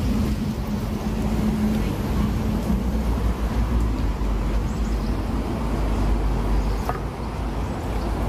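Steady low rumble of street traffic, with a steady hum that fades out a few seconds in and a single short click about seven seconds in.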